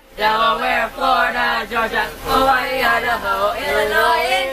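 A group of young male and female voices singing together, almost without a break.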